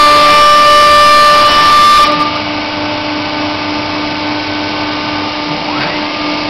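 CNC router spindle running with a loud, high steady whine that drops abruptly about two seconds in to a quieter, lower steady hum, with faint rising and falling whines near the end.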